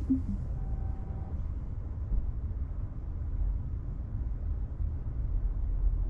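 Low steady rumble inside a Tesla Model 3's cabin, with a short falling two-note electronic chime right at the start.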